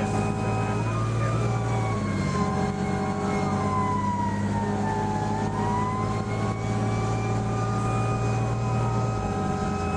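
Fire truck siren wailing, sweeping slowly down in pitch and back up, with the truck's air horn sounding over it in long blasts broken by short gaps.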